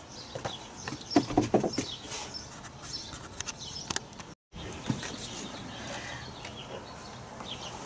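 Clicks and light knocks of hand work in a car's engine bay, with a quick cluster of knocks between one and two seconds in. Small birds chirp faintly in the background.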